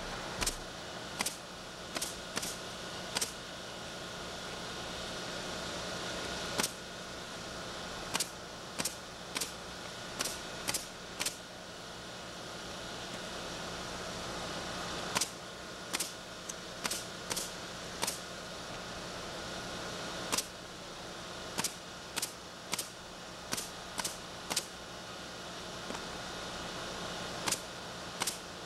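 Shingles being nailed down along a roof ridge: sharp single knocks in irregular runs, some a fraction of a second apart, others several seconds apart, over a steady hum.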